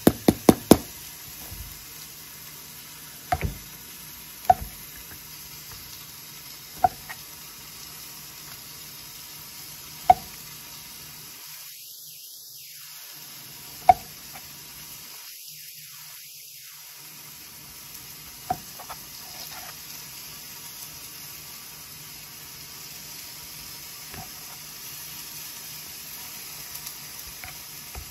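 Kitchen knife slicing through porcini (king bolete) mushrooms and knocking on a plastic cutting board: a quick run of knocks at the start, then single knocks every few seconds, over a steady faint hiss.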